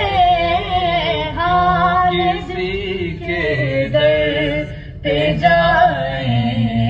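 A naat, an Urdu Islamic devotional song: one voice sings long, wavering held notes over a sung backing, with a short break between phrases about five seconds in.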